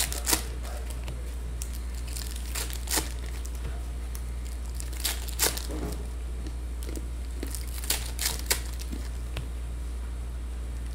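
Foil trading-card packs being torn open and their wrappers crinkled by hand, in sharp crackles every second or two, over a steady low hum.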